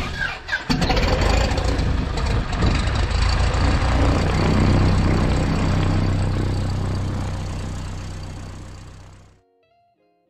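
Mooney M20J's four-cylinder Lycoming IO-360 engine starting: a brief uneven crank, then it catches and runs steadily, fading slightly before cutting off suddenly near the end.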